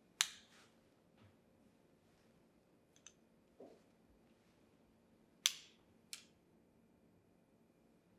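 Sunglasses being handled: a few sharp plastic clicks of the frame and hinges against faint room tone. The loudest clicks come about a quarter second in and about five and a half seconds in, with a smaller click just after six seconds.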